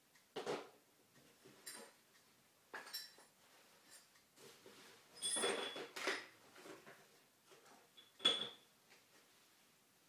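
Small loose metal parts clinking and rattling in a plastic tub as they are rummaged through: about six separate clatters, several with a brief metallic ring, the sharpest near the end.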